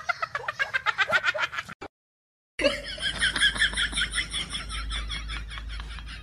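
A cat chattering: a rapid run of short high chirping cries, about eight a second, that cuts off just under two seconds in. After a short gap comes another fast run of high chirps over a steady low hum.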